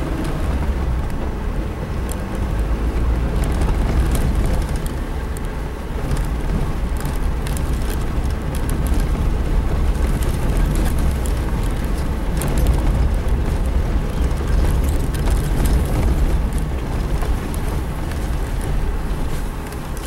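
Suzuki Jimny driving over a rough dirt road: a steady low engine and tyre rumble with frequent small knocks and rattles from the bumpy track. The sound drops off near the end.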